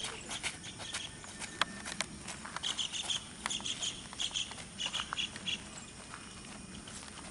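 Footsteps of a runner on a dirt field, quick irregular steps and shuffles. A bird chirps repeatedly from about two and a half seconds in to about five and a half seconds.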